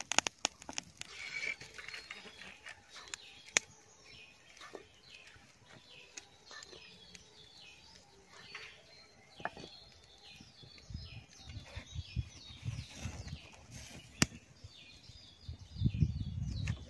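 A bird singing a long series of short, high, falling notes, repeated about twice a second, with a few sharp clicks. Low rumbling bursts come in during the second half and are loudest near the end.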